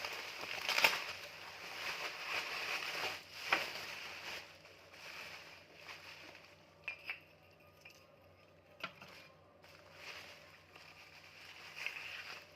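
Parcel packaging being handled and opened: crinkling and rustling with a few sharp clicks, busiest in the first few seconds, then sparser.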